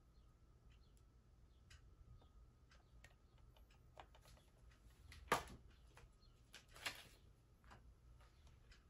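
Quiet handling of a metal steelbook case: scattered faint clicks and taps as it is turned over in the hands, with a sharp tap a little past five seconds in and a softer one near seven seconds.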